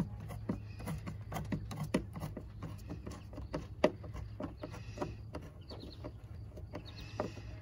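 Screwdriver tightening a worm-drive hose clamp on the air intake duct at the mass airflow sensor, giving a run of light clicks about two or three a second. Two brief hisses come near the middle and near the end.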